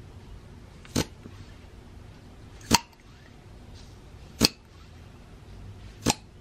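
Antique blowlamp's brass hand pump being stroked: four short, sharp pops about a second and a half to two seconds apart as the plunger with its refitted leather cup seal moves in the pump tube. The seal is taking hold, and the pump works.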